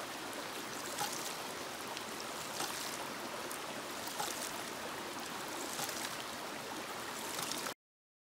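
Homemade hydraulic ram pump running slowly beside a stream: steady rushing water with a light knock about every second and a half as the waste valve shuts. The sound cuts off abruptly near the end.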